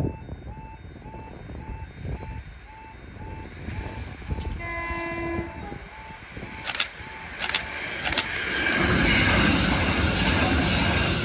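A level crossing warning alarm beeps about two and a half times a second as a Merseyrail Class 777 electric train approaches. The train gives one short horn blast about five seconds in, then passes close by with a loud rush of wheel and running noise near the end.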